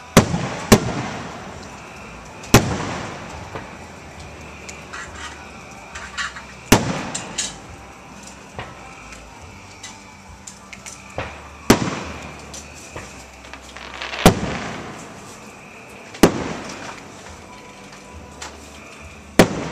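Aerial firework shells bursting. About eight sharp, loud bangs come at irregular intervals, each trailing off in an echoing rumble, with smaller pops in between.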